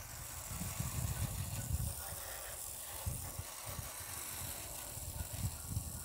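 Faint, irregular mechanical rattling and clicking, a ragged run of soft low taps with no steady hum.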